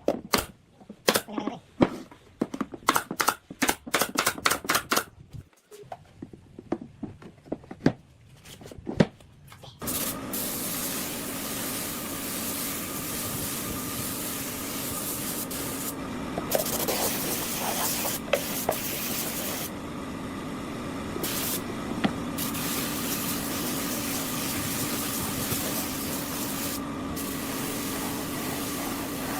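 A quick run of sharp knocks and taps, then about ten seconds in an electric tool's motor starts and runs steadily with a hissing whine.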